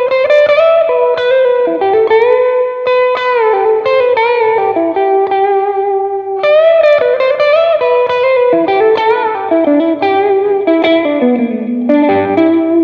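Fender Stratocaster Elite electric guitar playing a single-note lead melody, picked notes with string bends and long sustained notes. A few lower notes come in near the end.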